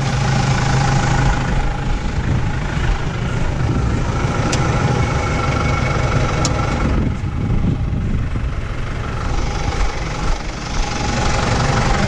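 New Holland T4.75 tractor's diesel engine idling steadily while the tractor stands still. Two sharp clicks sound midway, about two seconds apart.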